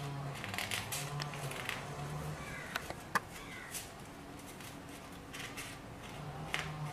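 Paper rustling and crinkling as hands fold and crease a strip of coloured craft paper, in short scratchy strokes, with one sharp click about three seconds in.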